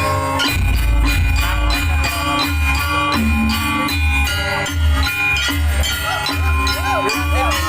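Opening music of a Banyuwangi janger performance: a gamelan ensemble with ringing metallophone tones and sharp regular strokes over a deep, steady drum beat, with a sliding melody line coming in near the end.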